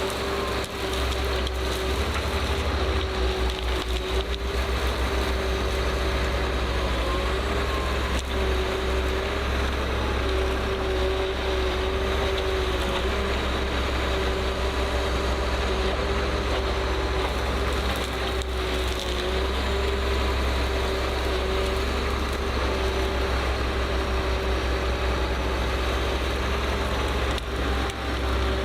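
A heavy machine's engine running steadily, a low rumble with a constant whine over it, and now and then a brief knock.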